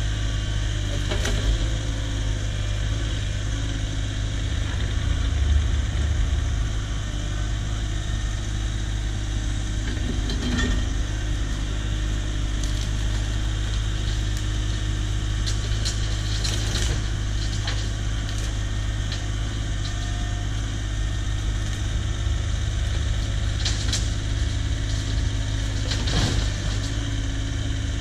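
Cat 304 mini excavator's diesel engine running steadily under work, with a few scattered knocks and clunks.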